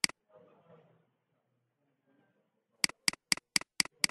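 Computer mouse clicking: one sharp click at the start, then a quick run of identical sharp clicks, about four a second, from near three seconds in.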